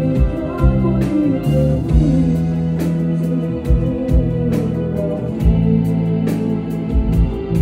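Live band music: sustained electronic organ chords with electric guitar and drum kit hits.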